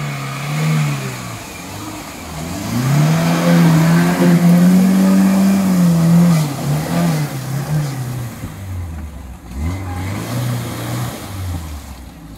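Lada Niva engine revving hard as the 4x4 pushes through a deep muddy puddle. The revs climb about two seconds in and are held high for several seconds, then rise and fall repeatedly as the driver works the throttle.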